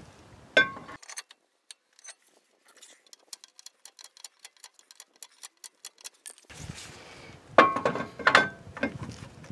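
Parking brake star-wheel adjuster being turned with a screwdriver to tighten the drum-in-hat parking brake shoes: a rapid run of light clicks, about five a second. Near the end, the metal brake rotor is slid back onto the hub with two loud clunks.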